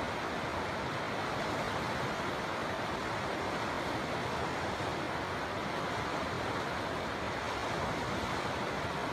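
River water flowing, a steady, even rushing with no breaks or changes.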